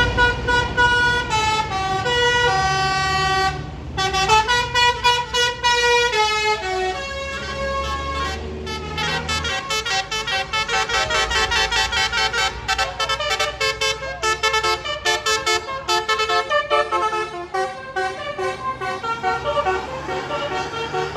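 Indonesian intercity buses sounding telolet (Basuri-style) multi-tone air horns, playing quick stepped melodies as they drive past, over the low rumble of the bus engines. The horn notes come faster and denser from about ten seconds in.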